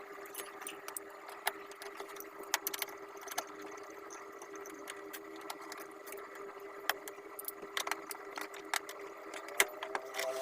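Scattered sharp metallic clicks and clinks of hand tools and parts while a car's automatic seat-belt retractor is being unbolted and removed, over a steady background hum.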